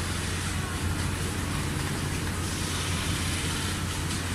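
Richpeace large-area rotating-head CNC sewing machine running as its head stitches across fabric stretched in a frame: a steady mechanical noise with a low hum.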